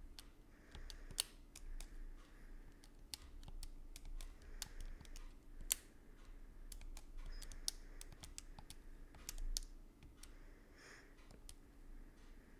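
Calculator keys being pressed in an irregular run of sharp clicks as a formula is entered, over a faint steady hum.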